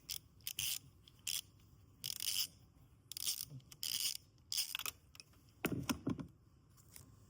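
Short metallic scrapes and clicks, about eight spread irregularly, the longest about six seconds in, from a T30 Torx driver working loose the bolt that holds the camshaft position sensor.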